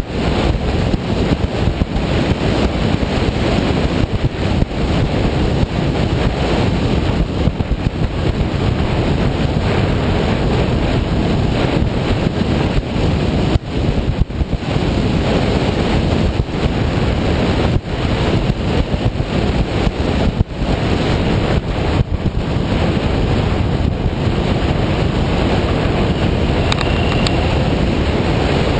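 Steady wind rushing over the microphone of a camera on a moving motorcycle, with engine and road noise blended in beneath and a few brief dips.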